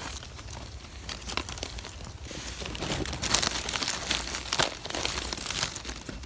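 Dry leaf litter rustling and crackling as fingers brush it aside and pluck small mushrooms from the forest floor, the crackle growing denser about halfway through.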